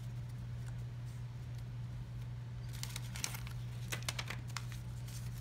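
Wax-paper wrapper of a pack of baseball cards crinkling and tearing, with many short, crisp crackles starting about halfway through, over a steady low hum.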